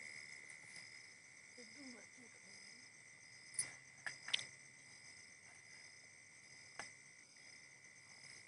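Crickets and other night insects chirping steadily in a high, pulsing drone. About halfway through come a few sharp metallic clinks of metal puja vessels being handled, with one more a little later.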